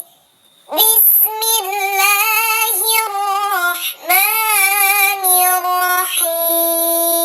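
A high, childlike singing voice chanting a melismatic Islamic devotional melody in the style of Quran recitation or sholawat, edited to seem to come from a cat. It starts after a brief pause, runs in two wavering, sliding phrases, and ends on a long held note.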